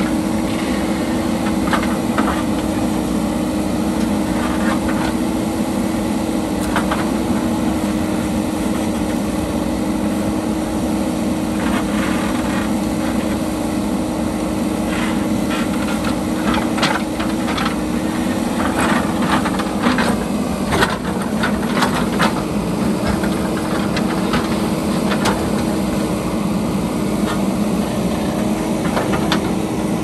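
Diesel engine of a JCB backhoe loader running steadily under load, with scattered sharp clanks and scrapes of the steel bucket against rock as it breaks up the hillside. The knocks come more often in the second half.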